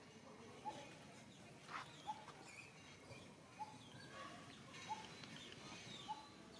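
Faint short animal calls, one every second and a half or so, each a brief rising note, over a quiet outdoor background.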